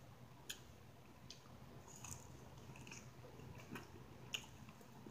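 Faint close-up chewing of food, with about five short wet mouth clicks spread through it.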